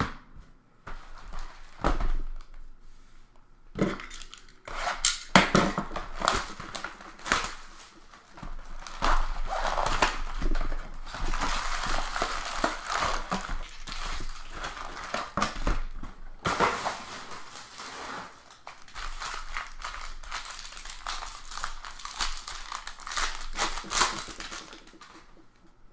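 Foil wrappers of Bowman Draft baseball card packs being torn open and crinkled, with sharp clicks and snaps. Long stretches of steady crinkling come in the middle and latter part.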